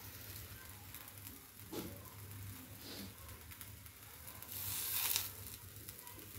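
Quiet cooking sounds from a moong dal dosa on a cast iron pan: faint sizzling over a steady low hum, with a few light knocks and a brief hiss about five seconds in.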